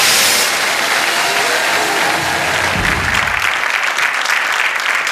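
Studio audience applauding, the clapping growing denser and louder from about halfway through.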